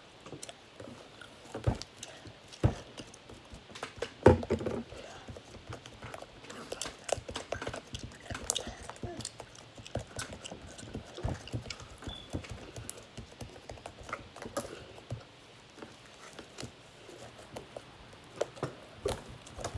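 Slime being squished and worked in the hands: many small irregular sticky clicks and pops, with a few louder knocks in the first few seconds.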